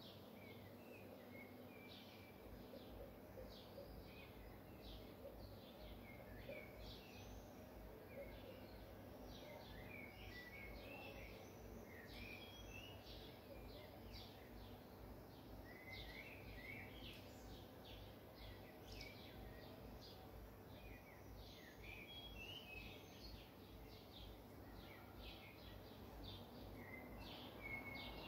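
Faint chirping of small birds: many short calls and quick little glides, one after another, over a low steady background hum that comes in about two seconds in.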